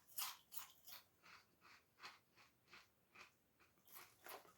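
Close-up chewing of a crunchy puffed corn-style protein snack, soft crunches about three a second that grow fainter as the puff breaks down.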